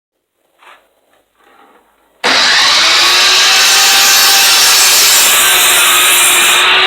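After a short near-silent start, a power tool suddenly starts cutting pine about two seconds in: a loud, steady noise of the wood being cut, with a steady hum from the motor underneath.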